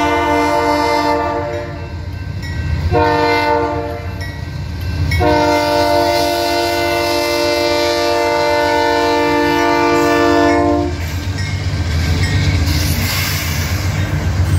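Union Pacific GE AC4400CW locomotive's Nathan K3LA air horn sounding the grade-crossing signal. A long blast ends about a second and a half in, a short blast comes about three seconds in, then a final long blast of about six seconds. After that the locomotive and freight cars pass through the crossing with a steady diesel and wheel rumble.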